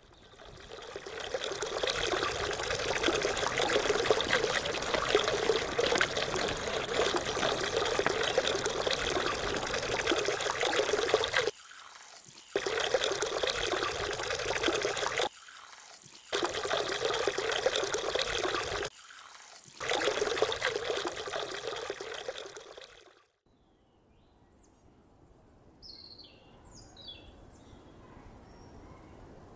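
Water splashing and trickling steadily from a stone fountain's spout onto wet pavement. The sound cuts out abruptly three times and stops about 23 seconds in, leaving quiet outdoor air with a few short bird chirps near the end.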